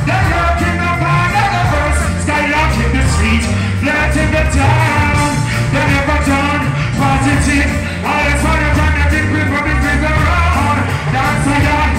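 Loud live reggae band playing, with a heavy bass line and a singer's voice over it.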